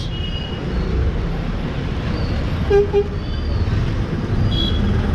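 Busy city street traffic with a steady rumble of engines. A vehicle horn gives two short toots close together nearly three seconds in, and fainter, higher horn beeps sound now and then.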